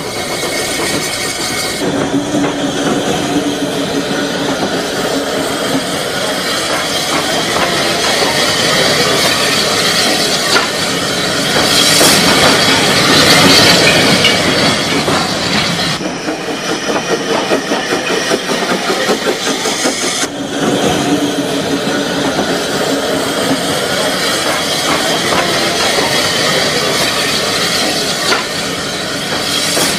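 A 750 mm narrow-gauge steam tram train running, heard as steady rail and running noise. The sound changes abruptly about two, sixteen and twenty seconds in.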